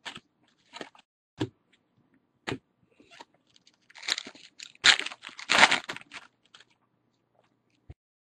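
Baseball trading cards handled and flicked in a few short sharp snaps, then a louder crinkling, tearing rustle lasting about two seconds from about halfway in, a foil card-pack wrapper being torn open.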